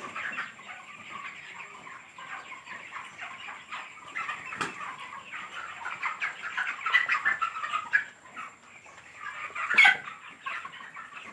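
A large flock of chickens grown to about 2 kg, in a continuous chorus of clucking and chirping calls. A sharp click sounds about four and a half seconds in, and a louder burst about ten seconds in.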